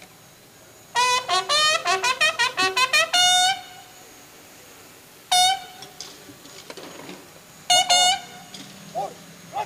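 Military bugles of a drum-and-bugle band sounding the honours call: a fast run of short notes ending on a held note, followed by a single note and another short phrase a few seconds later.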